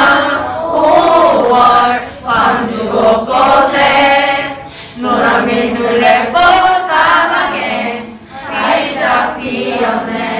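A choir singing a Korean song in phrases, with short breaks between lines. The lines sung are about yellow dandelions blooming everywhere in Gwangju in May 1980.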